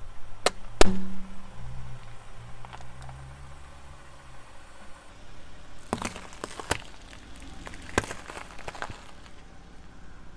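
Car tyre rolling over objects on asphalt: two sharp cracks about a second in over the car's low hum, then a run of cracks and crunches from about six seconds in as the tyre flattens three potatoes.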